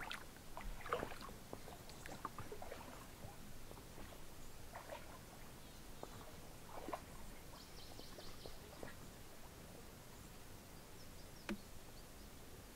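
Faint outdoor ambience: scattered short chirps and ticks, with a brief high trill about eight seconds in and a sharper click near the end.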